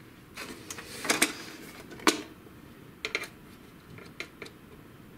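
A thin tool clicking and scraping against the plastic parts inside an opened inkjet printer's paper path: a scatter of short, sharp ticks, the loudest about one and two seconds in, with a few lighter ones later.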